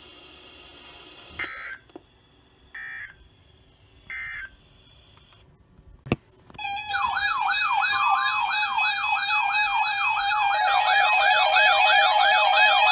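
Three short data-tone bursts about a second and a half apart, typical of the EAS end-of-message code on NOAA Weather Radio, then a click. About six and a half seconds in, several electronic sirens start a fast rising-and-falling yelp, layered together and getting louder near the end.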